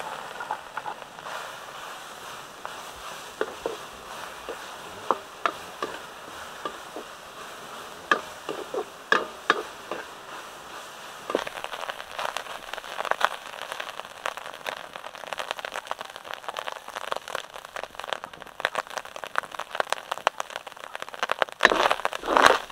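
Minced pork frying in a wok over a wood fire: a steady sizzle with many sharp crackles and pops, and a spatula scraping and clacking against the pan as it is stirred. The clacks come thicker from about halfway through and peak in a burst of fast stirring near the end.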